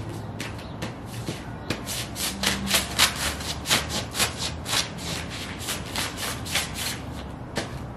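Sheepskin Ugg boots stomping and shuffling on loose magazine pages over concrete: a quick, irregular run of paper crinkles and crunches, several a second.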